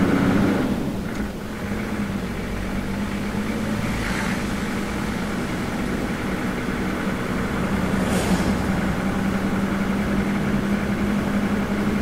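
Toyota LandCruiser 60 Series engine running steadily as the vehicle drives along, heard from inside the cabin as an even low drone. Two brief hissing rushes come about four and eight seconds in.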